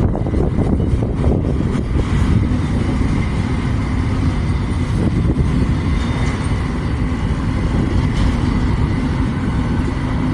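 CSX intermodal freight train's cars rolling past, a steady rumble of wheels on rail, with wind on the microphone.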